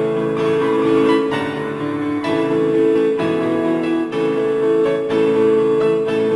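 Background music led by piano, slow sustained chords changing about once a second.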